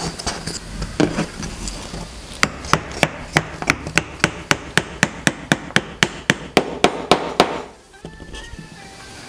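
Wooden joint being tapped home: about eighteen quick, evenly spaced knocks, roughly three a second, driving a double 45-degree mitred mortise-and-tenon joint closed until it seats and the tapping stops.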